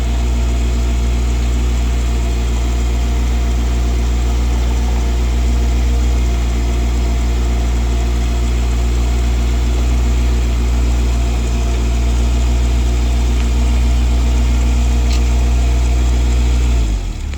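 CAT 301.7 mini excavator's diesel engine running steadily at working speed, then dropping to a lower idle about a second before the end.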